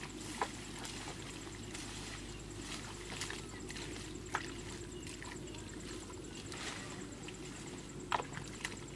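Hands digging and squelching in wet mud, with a few short, sharp wet smacks scattered through, over a steady low background.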